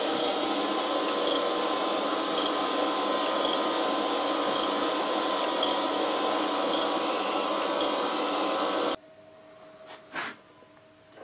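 Surface grinder wheel grinding steel blocks on a pass of about three thou: a steady, loud grinding hiss with a hum underneath. It cuts off suddenly about nine seconds in, leaving a much quieter stretch with one brief click.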